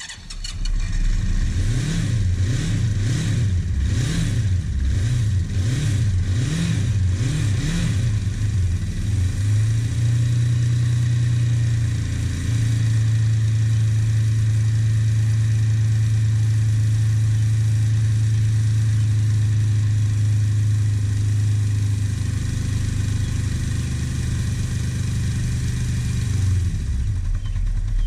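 1971 Honda CB500 Four's air-cooled inline-four engine on a cold start, revved in short blips about once a second for the first eight seconds or so, then settling into a steady idle.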